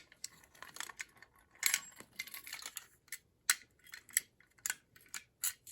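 Handling noise from a metal fire alarm pull station, an RSG T-bar: light metallic clicks, knocks and rattles as it is turned over and moved, with a run of separate sharp clicks in the second half.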